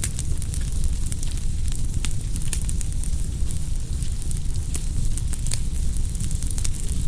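Wood fire burning, with frequent irregular crackles and pops over a steady low rumble.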